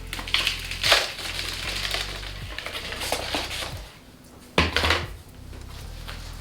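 Plant pots and potting gear being handled and set down while repotting: a few short knocks and clatters, the loudest a cluster about four and a half seconds in.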